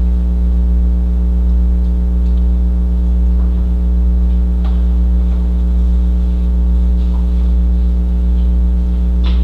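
Steady electrical mains hum in the meeting room's sound feed, a low drone with a stack of even overtones, with a few faint clicks.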